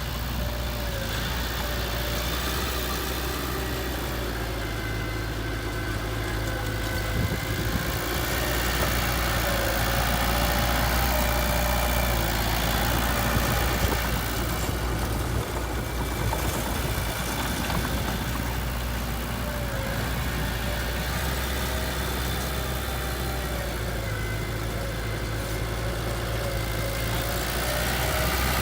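Heavy diesel engine of earthmoving machinery running steadily at low revs, a constant low hum with a faint wavering whine above it, swelling slightly for a few seconds in the middle.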